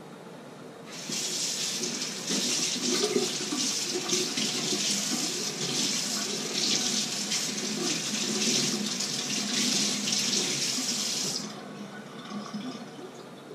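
Kitchen sink tap running, with water splashing as something is rinsed under it. It is turned on about a second in and shut off near the end.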